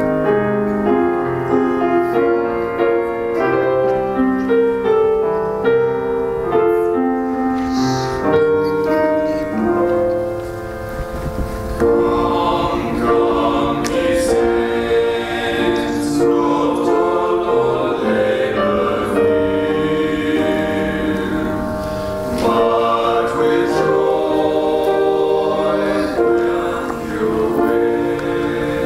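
A piano and organ play a hymn arrangement, and a men's vocal quartet (tenors, baritone and bass) comes in singing about twelve seconds in, sung harmony over the keyboard accompaniment.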